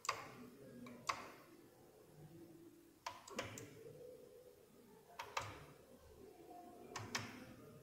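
Sharp clicks of plastic wall rocker switches flipped by hand, switching the bulbs off: one click, then pairs and small clusters of clicks a second or two apart.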